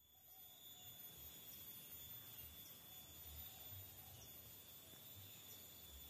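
Faint rural ambience: a steady high insect trill, with soft, irregular low thuds of footsteps on the trail.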